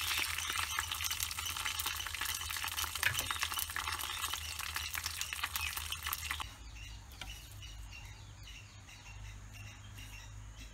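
Green leaves sizzling and crackling as they fry in a metal pan. The frying cuts off suddenly about six seconds in, leaving a faint low hum.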